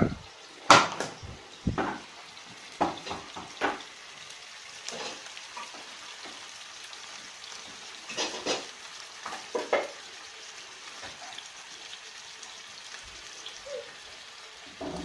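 Moose liver sizzling and spattering as it fries, a steady hiss. Over it come scattered short knocks and scrapes of a utensil stirring the pieces against the pan, most of them in the first ten seconds.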